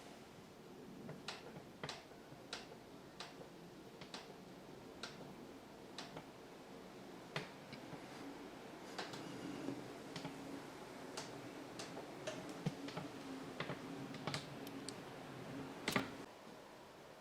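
Light, irregular clicks and taps from hands handling equipment, about one a second at first and busier towards the middle, with one louder click near the end.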